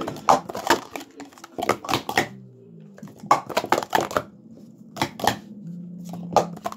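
Plastic sport-stacking cups being rapidly stacked and unstacked on a rubber stacking mat: quick flurries of clacks and clatter, coming in short clusters with brief pauses between them.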